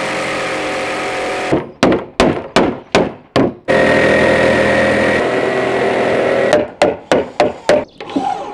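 Electric jigsaw cutting through a wooden board. The motor runs steadily, then twice breaks into a rapid string of short bursts that stop and start abruptly.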